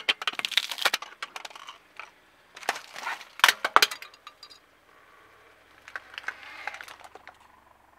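A car tyre rolling over and crushing a small globe toy: bouts of sharp crackling and crunching, in three bursts, one at the start, one around three seconds in and one around six to seven seconds.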